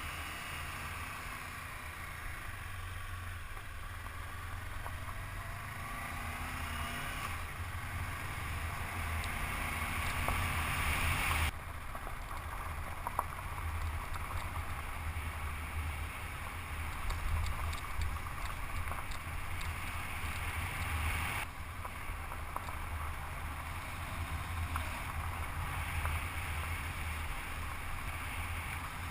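Honda CB500X motorcycle's parallel-twin engine running under way, its pitch rising and falling in the first few seconds, with wind rushing over the microphone.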